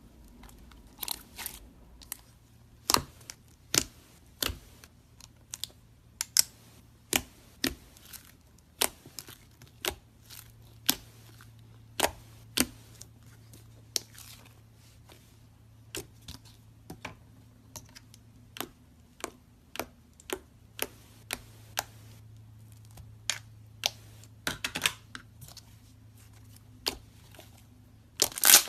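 Hands squeezing, stretching and pressing soft slime, making irregular sharp clicks and pops, about one or two a second, sometimes in quick pairs.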